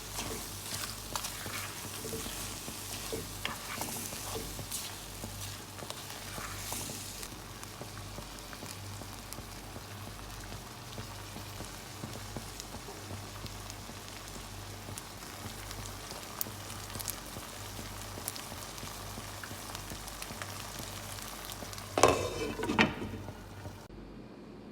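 Food sizzling in a frying pan while it is stirred, with scattered clicks of the utensil against the pan. Near the end comes a louder, pitched scrape lasting about a second, then the sizzle cuts off suddenly.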